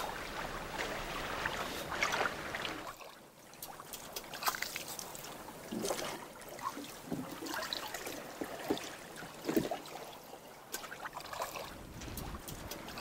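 Water lapping and trickling against a wooden boat's hull, with a steady rush for the first three seconds, then quieter with scattered small knocks and clicks.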